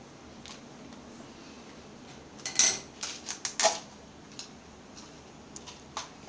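Screws rattling in a small plastic cup as it is picked up and moved: a burst of sharp clicks lasting about a second and a half midway, then a single light knock near the end.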